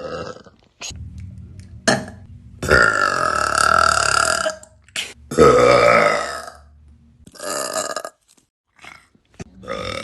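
A female voice belching in a series of burps: two long, drawn-out ones about three and five and a half seconds in, each lasting around two seconds, with shorter burps before and after them.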